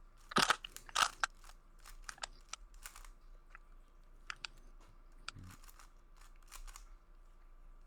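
Plastic Rubik's cube being twisted: layers clicking and scraping as they turn, with two louder bursts of clicks in the first second or so, then scattered lighter clicks.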